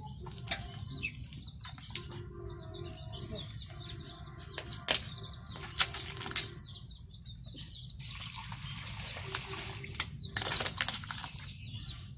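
Raw duck carcass being pulled apart by hand, with a few sharp snaps about five seconds in and twice more within the next second and a half. Small birds chirp throughout.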